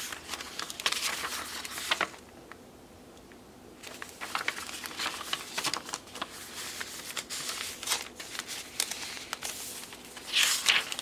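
Paper rustling and crinkling as hands slide a paper tag out of a journal page pocket and handle the pages. There is a quiet pause about two seconds in, and the loudest rustle comes near the end.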